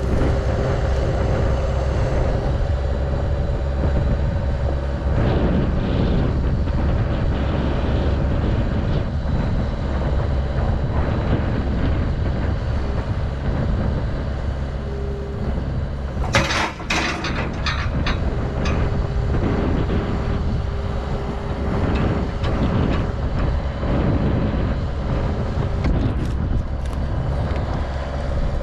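The engine of the machine working a truss boom runs steadily under load while the boom lifts a load of extra-heavy pipe. A few sharp knocks come about two-thirds of the way through.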